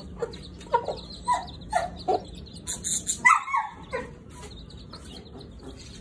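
Short animal calls, several in quick succession over the first two seconds and one louder call about three seconds in, then quieter.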